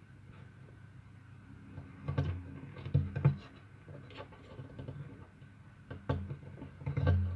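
Kittens clambering over wooden bed-frame slats: paws and bodies knocking and scraping on the wood in a handful of irregular dull bumps, the loudest near the end.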